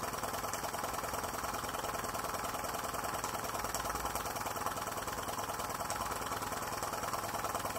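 Graham Industries VR1A double-acting model steam engine running steadily on live steam with a fast, even beat, belt-driving a Baker fan that puts a good load on it.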